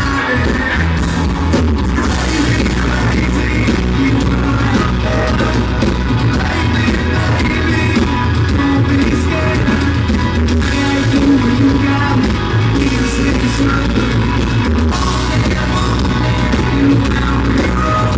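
Live country-rock band playing loud, with drums, electric guitar, bass and a singing voice, recorded in a way that sounds harsh and distorted.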